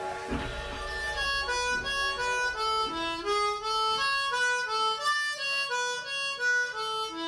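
Diatonic harmonica in A playing a short single-note melody of quick blow and draw notes that step down and back up, a few notes a second, moving onto a lower held note at the end.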